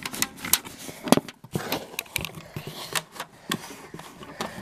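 Cardboard box being handled close to the microphone: an irregular string of clicks, scrapes and crackles.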